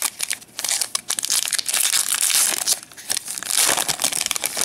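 Foil wrapper of a trading-card pack crinkling and tearing as it is ripped open by hand, a dense run of crackles throughout.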